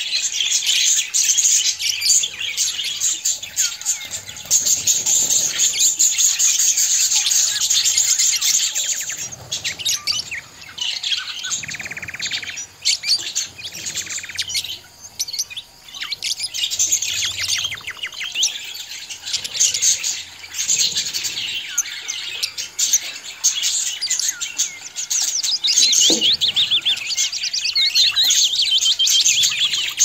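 A group of budgerigars chattering: a continuous stream of rapid warbles, chirps and squawks from several birds at once, easing off for a few seconds about halfway through.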